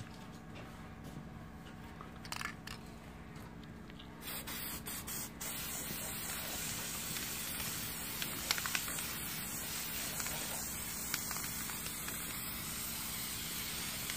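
Aerosol can of copper gasket sealant (Permatex Copper Spray-A-Gasket) spraying onto a metal head gasket, coating it with sealant. A few short puffs come about four seconds in, then a continuous hiss.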